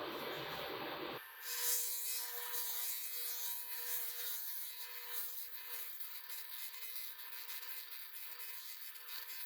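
Steady abrasive scraping and rubbing of a hand tool working a surface. About a second in, an abrupt cut changes it to a thinner, higher rasp with a faint steady hum underneath.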